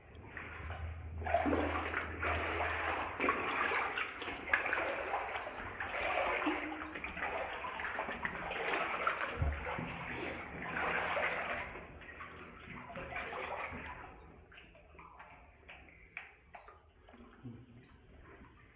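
Legs in waders wading through water on a flooded tunnel floor, sloshing and splashing in surges with the strides; the sloshing fades to a faint trickle about 14 seconds in.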